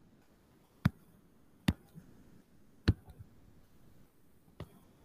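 A few isolated sharp clicks, four clear ones roughly a second apart with a couple of fainter ones between, against a quiet background.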